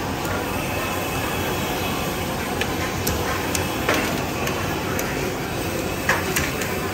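Street food stall ambience: a steady rush of noise with scattered sharp clinks and clatters, like cooking utensils, in the second half.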